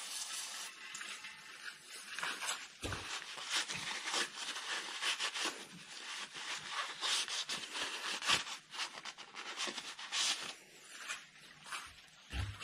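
A paper shop towel rubbing and rustling as a gloved hand wipes the oil filter and the aluminium sump clean, in irregular scuffs, with a few dull knocks.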